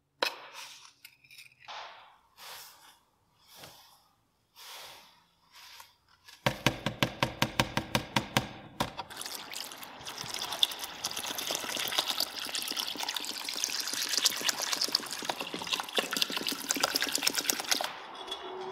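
Water poured into a stainless-steel tray onto a layer of white powder: a dense, steady splashing pour lasting about nine seconds that stops shortly before the end. Just before it comes a fast, loud run of even pulses lasting about two seconds, and before that a few short, soft, separate sounds.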